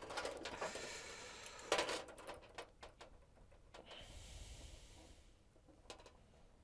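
LED backlight strips being handled and set down on a TV's metal back panel: light clicks and knocks with some soft rubbing, the loudest knock about two seconds in.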